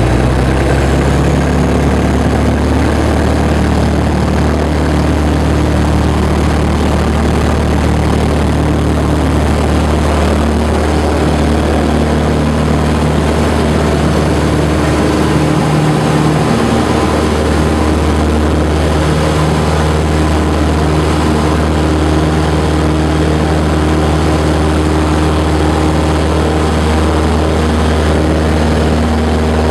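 Piper Cub's piston engine and propeller running at full takeoff power, heard from inside the cabin: a loud, steady drone through the takeoff roll and climb-out, with a slight change in tone about halfway through.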